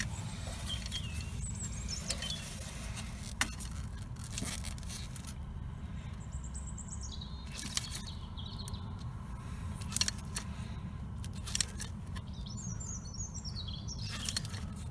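Caulking gun squeezing out a bead of polyurethane seam sealer, its trigger clicking every second or two over a low steady rumble. Two spells of short, high chirping squeaks, around the middle and near the end.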